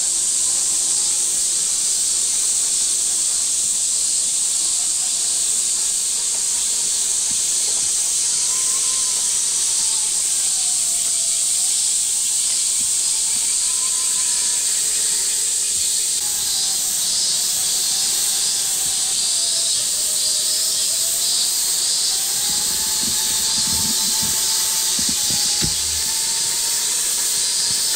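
Loud, steady high-pitched hiss of a cicada chorus, joined about halfway through by a second, pulsing insect call. Underneath, the faint whine of the RC crawler's electric motor rises and falls in pitch as it drives, with a few low knocks near the end.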